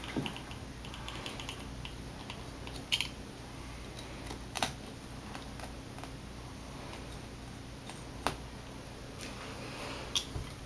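A carpet knife makes faint quick ticks as it cuts the last of the frieze carpet's backing, then a few isolated light clicks come as the cut-out carpet square is handled, over a low steady hum.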